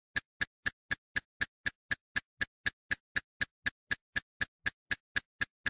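Ticking sound effect for an old-film countdown leader: sharp, evenly spaced clicks, about four a second, with silence between.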